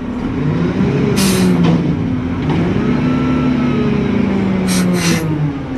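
Semi truck engine heard from inside the cab, its pitch rising and falling twice as the truck pulls and shifts. Two short hisses, about a second in and near the end.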